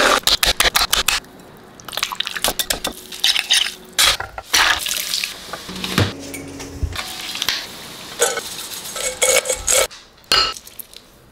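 Quick run of kitchen prep sounds: dishes and utensils clinking and knocking, stirring and pouring, in a rapid series of short clicks.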